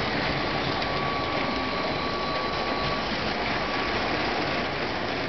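LEGO train running on plastic track: the steady whirr of its small electric motor with the rolling of its wheels.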